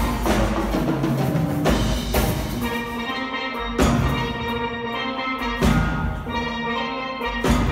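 Steel band playing a soca arrangement: steel pans ringing out melody and chords over deep bass pans, with a few loud, sharp accented strikes.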